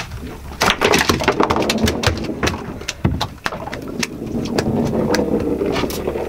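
A freshly caught ling thrashing against a boat's deck as it is unhooked: a run of irregular sharp slaps and knocks.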